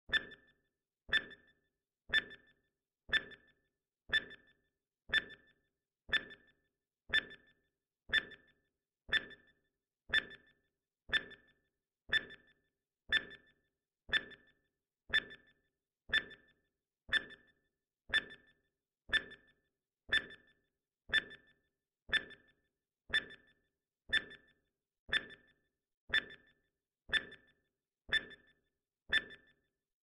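Countdown timer sound effect: a short, high pitched ping once every second, about thirty in all, each dying away quickly.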